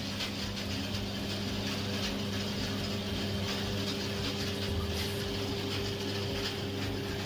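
Jewellery casting machine running: a steady electric motor hum with a fine, fast mechanical rattle.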